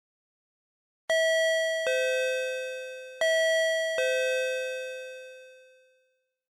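Two-note doorbell chime, a higher tone then a lower one, rung twice in a row, the last note ringing out and fading.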